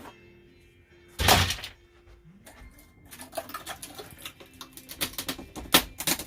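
Demolition of an RV ceiling: a loud crunching rip about a second in, then a rapid, irregular run of clicks, knocks and clatters as ceiling material is pulled and broken away.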